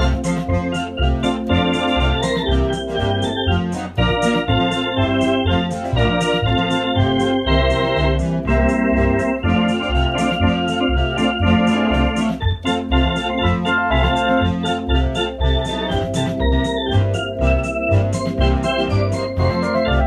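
Two-manual electronic organ played live: sustained chords and a melody over a bouncing bass line, in the style of hockey-arena organ tunes.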